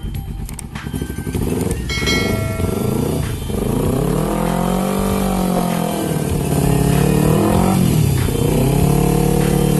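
Kawasaki Ninja 250 carbureted parallel-twin engine being revved. The pitch climbs to a peak about five seconds in and falls back, then it is revved up again and held high near the end.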